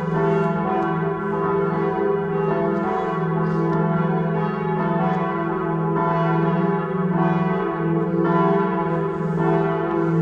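Church bells of St. Bonifatius ringing in a full peal, several bells striking over one another in a steady, unbroken sound.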